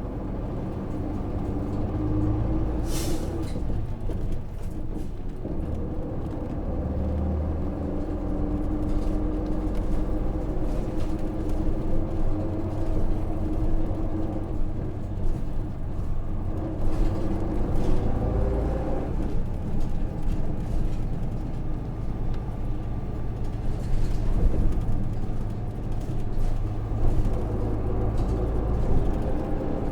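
Hino KV234 city bus's 6HK1 diesel engine heard from inside the cabin, pulling through its manual gears, its pitch climbing and dropping back at each gear change. A short hiss of air comes about three seconds in.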